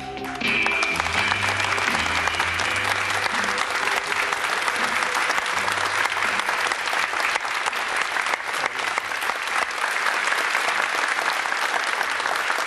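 Studio audience applauding steadily, starting about half a second in as the last notes of the show's theme music fade out.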